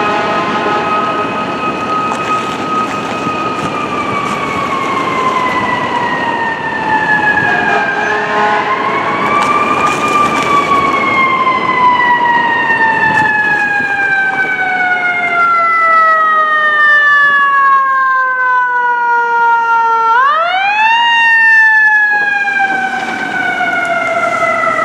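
Fire engine siren wailing in long, slow falls in pitch. It is wound back up about a third of the way in and again sharply near the end, over the hum of city traffic.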